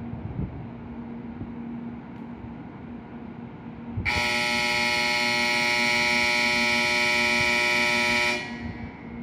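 Shinkansen horn sounding one long steady blast of about four seconds as the train approaches the station. It starts about four seconds in and stops abruptly, over a low steady hum.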